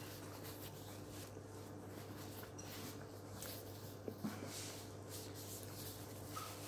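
Quiet room with a steady low hum, and soft rustling of a paper napkin rubbed between the fingers as they are wiped; two small ticks about four seconds in.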